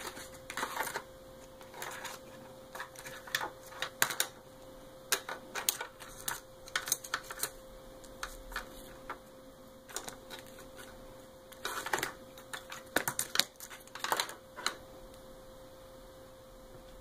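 A cat pawing at and stepping on papers on a desk: irregular clicks and paper rustles in scattered clusters, over a faint steady electrical hum.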